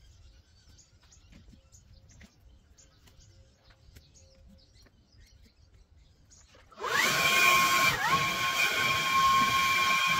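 Faint chirps and clicks for several seconds, then about seven seconds in a cordless battery leaf blower starts: its motor whine rises quickly to a steady high pitch over a rush of air, dips briefly about a second later, and runs on steady.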